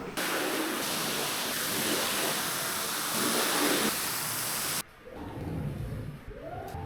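Loud, steady hiss of high-pressure water spraying onto a carpet, which cuts off suddenly about five seconds in, leaving fainter gliding squeaks.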